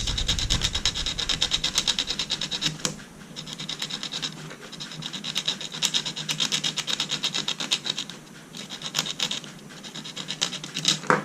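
Sandpaper rubbed back and forth in quick strokes, several a second, in runs with short pauses, sanding to free a hard-to-remove screw.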